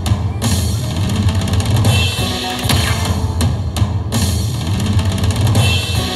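Slot machine bonus-round music with a steady drum beat and a heavy bass line, playing throughout.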